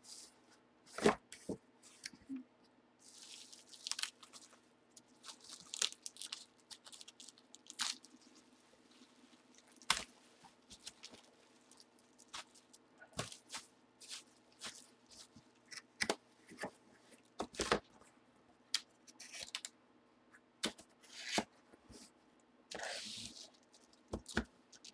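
Unpacking a cardboard mailer box: crinkling and tearing of bubble wrap and packing material in short bursts, with scattered clicks and knocks as the hard plastic slab holding a graded comic is lifted out and handled. A faint steady hum underneath.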